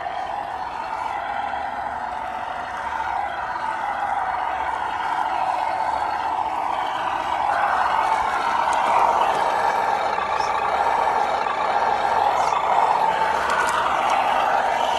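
Whine of an RC Suzuki Jimny scale crawler's electric motor and gears, its pitch shifting with the throttle as it crawls over rocks and dirt, louder in the second half.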